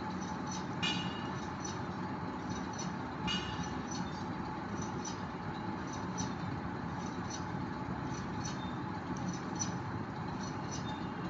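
Steady background hum with small scattered clicks and taps of hands handling Play-Doh and little toy pieces; the strongest clicks come about a second in and about three seconds in.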